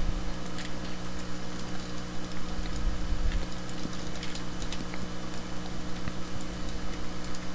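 Scattered light clicks of a computer mouse and keyboard being worked, irregularly spaced, over a steady low electrical hum.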